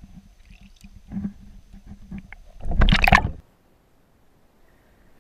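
Water sloshing and gurgling around a camera held at the surface, with a loud burst of splashing about three seconds in. It cuts off abruptly to a faint underwater hush.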